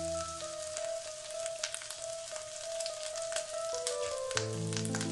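Dried red chillies and grated ginger sizzling in hot coconut oil with spluttering mustard seeds, with scattered sharp pops and crackles.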